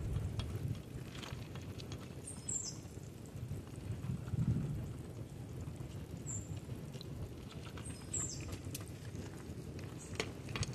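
Quiet mangrove-flat ambience: a low wind rumble on the microphone, faint scattered ticks, and a few short high chirps, two pairs of them about two and a half and eight seconds in.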